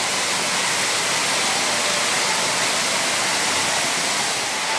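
Steady rushing hiss of falling water from an indoor waterfall, with faint voices under it.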